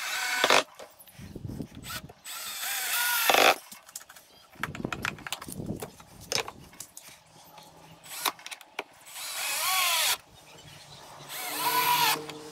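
Cordless drill-driver driving screws into timber in several short runs, its motor whine rising and falling, between knocks of wooden pieces being set on the bench.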